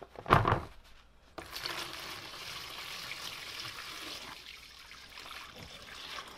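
Liquid poured in a thick stream into a plastic tub, splashing and foaming as it fills a parts-soaking bath. The pour starts about a second and a half in and eases off after about four seconds. A short knock comes just before it.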